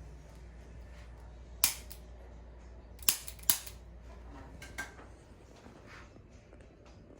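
Chiropractic Activator adjusting instrument firing against the jaw joint during a TMJ adjustment: four sharp spring-loaded clicks over about three seconds, the middle two close together and the last one fainter.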